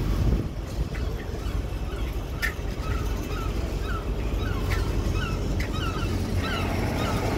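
Birds calling: many short, repeated chirping calls over a steady low rumble.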